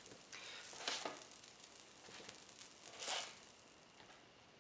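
Faint scraping and shuffling as a plastic spatula slides grilled arepas about on a ceramic plate, in two short swells, about a second in and again about three seconds in.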